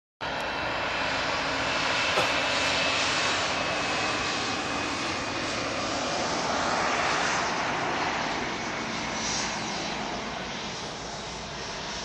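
Fixed-wing airplane engines running as the aircraft passes, a steady noise with a faint whine, loudest in the first half and slowly fading toward the end. A faint click about two seconds in.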